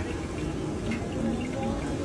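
Batter fritters sizzling in a large wok of hot oil as they deep-fry, a steady hiss.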